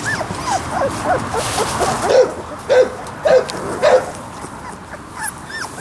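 Young Labrador retriever puppies whimpering and squealing: many short calls that rise and fall in pitch, overlapping one another, with several louder yelps about two to four seconds in.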